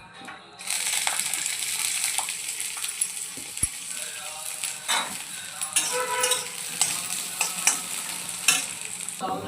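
Food sizzling as it is stir-fried in a hot pan, with a spatula scraping and clicking against the pan. The sizzle starts abruptly under a second in.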